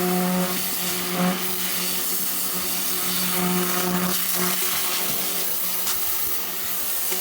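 Pressure washer running steadily: a constant pump-motor hum with the hiss of the water jet spraying the boat's hull, stripping old paint and algae.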